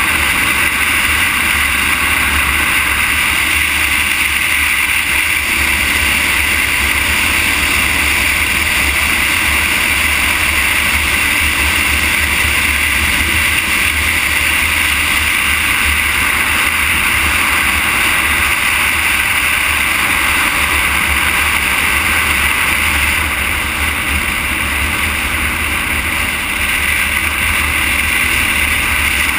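Steady rush of wind and road noise on a camera moving along an asphalt road, dipping slightly about three-quarters of the way through.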